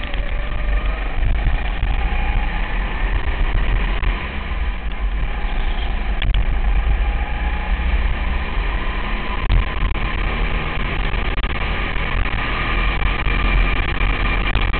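200cc kart engine at racing speed, recorded onboard. It runs loud and continuous, its pitch rising and falling with the throttle, over a heavy low rumble.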